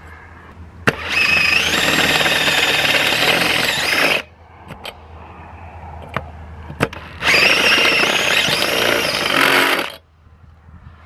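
Cordless drill driving a titanium-coated HSS step drill bit through thin painted sheet metal, enlarging a hole. There are two runs of about three seconds each with a whine as the bit cuts. A sharp click comes just before the first run, and a few small clicks fall in the pause between runs.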